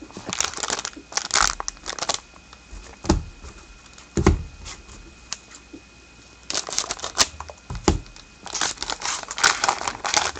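Plastic packaging crinkling and tearing as a trading-card box is opened by hand, in bursts, with a few soft thumps of the box being handled.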